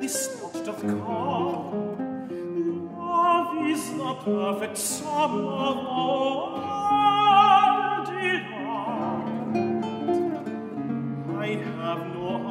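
Art song for tenor voice and classical guitar: long held notes with vibrato over plucked guitar notes, with a few sharp strums.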